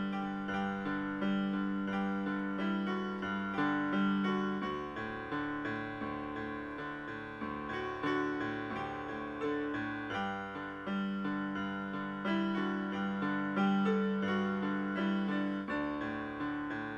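Solo piano music: a steady flow of single notes and chords, each struck and fading away.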